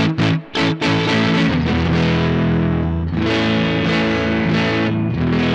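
Distorted electric guitar with plate reverb: a Squier Paranormal Offset Telecaster with its neck and bridge pickups wired in parallel. A few short, choppy strums in the first second give way to ringing, sustained chords that change about three seconds in and again near the end.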